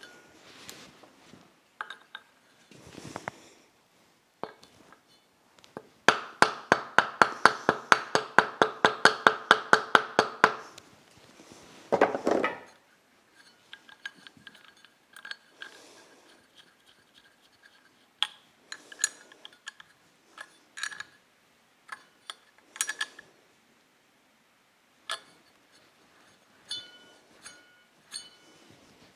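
Metal tools and parts clinking and clattering on a workbench, with a run of about twenty quick, ringing metallic taps, several a second, lasting about four seconds, then a louder scrape and scattered clinks.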